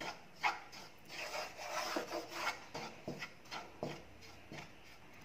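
A wooden spatula scrapes and stirs dry, crumbly gram flour across a kadai as the flour is roasted in a little ghee. The scraping comes in repeated strokes, about two a second, and grows quieter in the last second or so.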